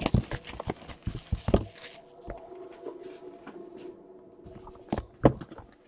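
Cellophane shrink wrap crackling and tearing as it is stripped off a sealed trading-card box, then the cardboard box being handled, with light taps and a couple of sharper knocks a little after five seconds in.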